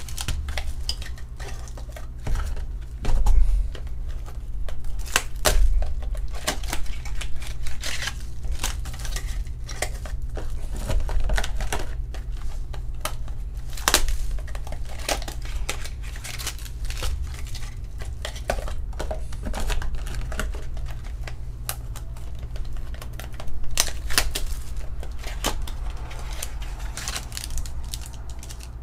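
Trading card packaging being unwrapped and handled: foil and plastic wrap crinkling, with many sharp clicks and taps from the card-stock pack box, over a steady low hum.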